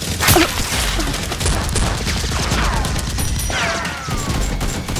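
Rapid, continuous gunfire sound effects for a toy-blaster shootout, with a few falling whistles in the middle and again from about three and a half seconds in.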